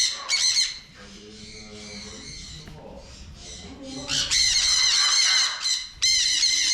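Birds squawking loudly with harsh calls of wavering pitch: a short burst at the start, then a longer stretch of calling from about four seconds in.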